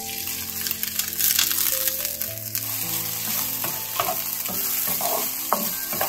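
Soaked glutinous rice poured into hot oil in a wok, sizzling as it lands, then stir-fried with a wooden spatula whose strokes scrape and toss the grains across the pan from about halfway through.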